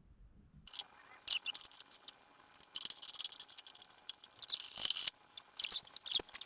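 Hand ratchet socket wrench clicking in short bursts of quick strokes as it drives a bolt into a running-board mounting bracket. The clicking starts under a second in.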